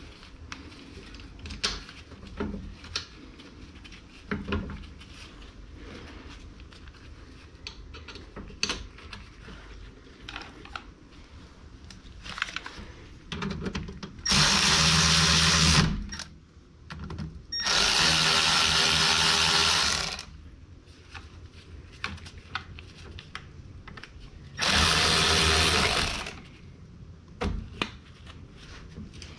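Power tool run in three bursts of about two seconds each, with small clicks and clatter of tools being handled between them.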